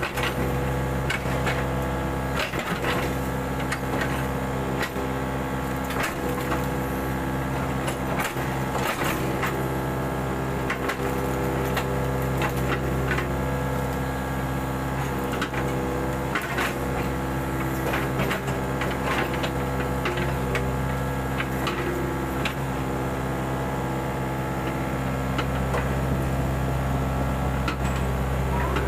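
Mini excavator's diesel engine running steadily, with frequent sharp knocks and clatter from the machine at work.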